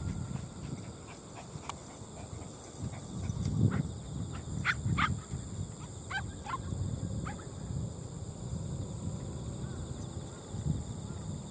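A dog gives a few short, sharp barks in the middle, over uneven low rumbling on the microphone.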